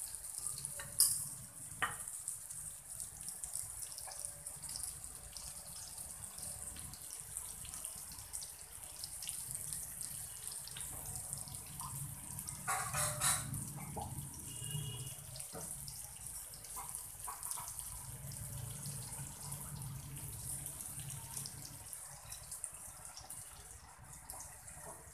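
Surmai (kingfish) slices sizzling steadily in oil on a flat tawa, just after being flipped and given a little more oil, with a few sharp crackles and a louder spell of spitting about halfway through.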